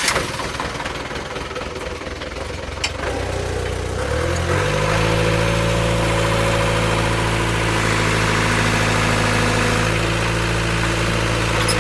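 MS 110 hydraulic excavator's engine running just after start-up, being run to test a newly fitted main relief valve. About four seconds in its speed steps up, then holds steady.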